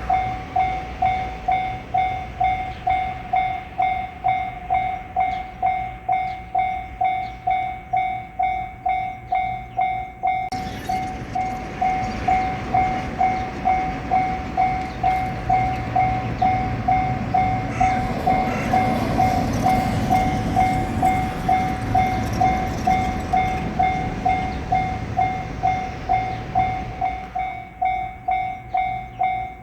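Japanese level-crossing warning bell ringing, a steady ding about twice a second. From about ten seconds in, a diesel railcar passes through the crossing: its running noise swells, with wheel clicks over the rail joints around the middle, and it fades out near the end while the bell keeps ringing.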